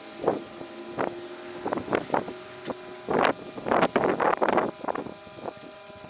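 Microwave oven running with a steady hum while the over-cooked garlic bread inside crackles and pops irregularly, burning and smoking; the crackles come thickest from about three seconds in.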